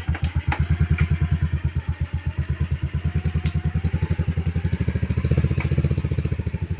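Vehicle engine running at low revs with an even chugging beat, growing louder about five seconds in.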